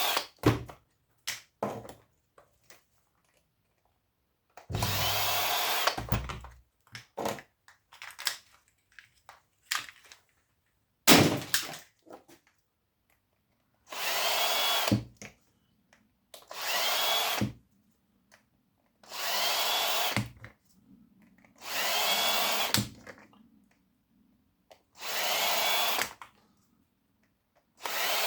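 Cordless drill backing screws out of small motor casings, running in short bursts of about a second, some seven times, its pitch rising as each burst starts. Between bursts come clicks and knocks of metal parts being handled, the loudest a sharp knock about eleven seconds in.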